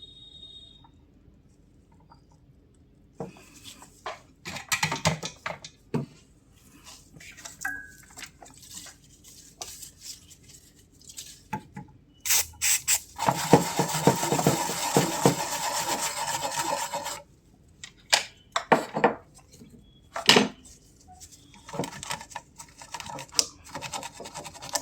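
Small tools clicking and tapping against a circuit board and workbench while a replacement optocoupler is fitted. About halfway through comes a dense scraping, rubbing stretch lasting about four seconds, then more scattered taps.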